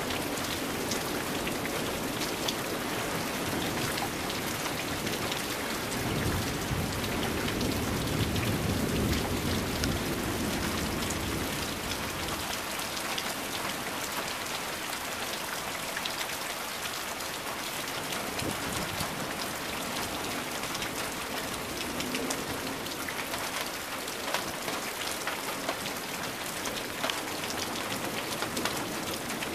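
Heavy rain falling steadily, with scattered drops ticking close by. A low rumble of thunder swells from about six seconds in and dies away by about twelve seconds.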